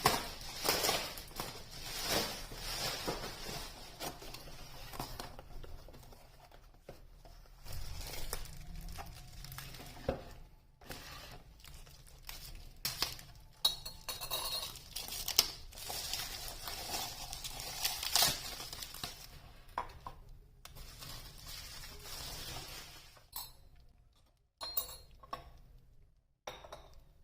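Kitchenware being handled: dishes, glass and utensils clinking and knocking at irregular intervals, with some scraping between the strikes.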